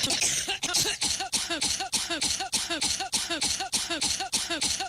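Woman coughing in a rapid, regular run of short hacking coughs, about four a second, a coughing fit she puts down to an allergic reaction.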